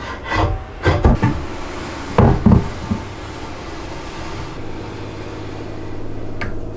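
Aluminium-extrusion rip fence being set down and shifted on a wooden saw-table top: a cluster of clunks and knocks in the first second and a half, and another short cluster a little past two seconds in.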